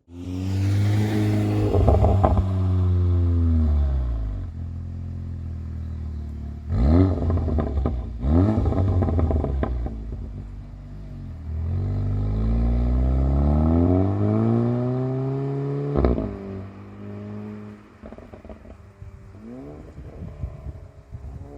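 Audi S3 8V's tuned 2.0 TFSI turbo four-cylinder exhaust, through a 2.75-inch MG cat-back and 3-inch downpipe, being revved up and down several times with a few short blips. As the revs fall, the exhaust pops and crackles: the overrun pops-and-bangs map in the engine tune.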